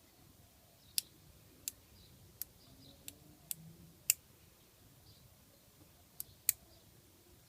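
Lock picks working inside a seized Master Lock padlock, giving about eight sharp, light metallic clicks at uneven intervals, two of them close together near the end.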